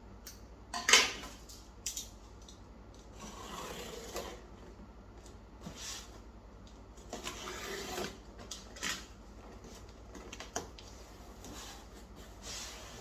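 A shipping package being handled and opened by hand: bursts of rustling, rubbing and scraping of packaging, with a sharp, loud burst about a second in.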